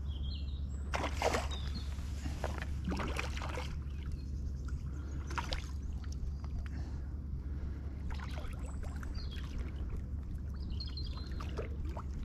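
Steady low wind rumble on the microphone, with scattered rustles and handling noises and a few faint high chirps.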